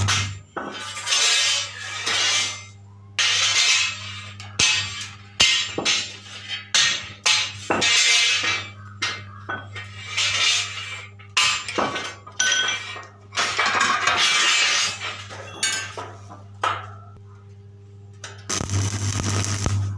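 Stick arc welding: the electrode's crackling sizzle in short runs of about a second, broken by gaps and sharp clicks, over a steady hum from the welding machine.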